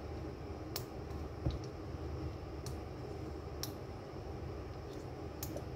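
Plastic cap of a squeeze bottle of French dressing clicking sharply about five times as it is twisted and worked by hand: the cap is stiff and hard to open.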